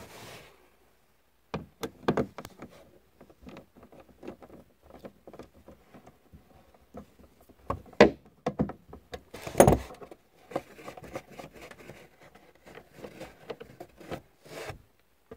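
Irregular small metallic clicks and clinks of a Torx socket being worked on the subwoofer's retaining bolts in the rear parcel shelf as they are loosened by hand, with a few louder knocks about 2, 8 and 10 seconds in.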